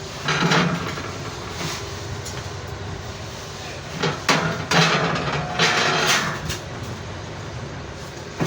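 Steel being worked by hand: irregular knocks and scrapes of metal, a handful of short noisy bursts, most of them bunched together in the middle of the stretch.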